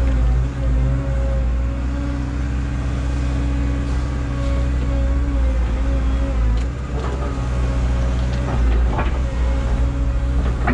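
2022 Caterpillar 317 excavator's diesel engine and hydraulics running steadily while the machine works a stump, a deep hum with a held higher tone above it. A few faint knocks come in the second half.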